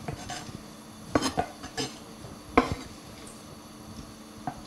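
Kitchen knife scraping chopped seafood off a wooden cutting board into a metal strainer bowl: a few scattered sharp clinks and knocks, the loudest about halfway through.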